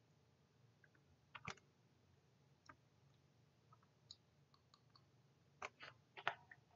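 Faint clicks of a computer mouse in near silence, clicking through presentation slides: one about a second and a half in and a cluster of two or three near the end.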